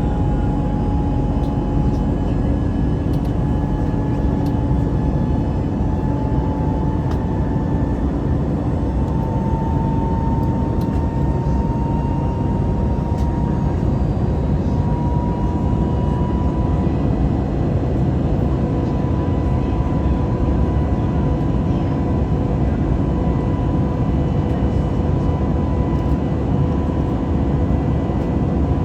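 Cabin noise of an Airbus A320neo with its jet engines running: a steady dense rumble with an engine whine that slowly rises in pitch, and a few faint rattles.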